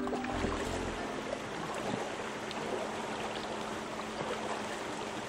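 A river flowing: a steady, even rush of running water. The tail of the background music fades out about a second in.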